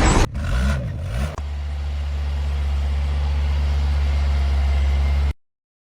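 A motor vehicle's engine running: a second of shifting low sound, then a steady low drone that grows slightly louder and cuts off abruptly near the end.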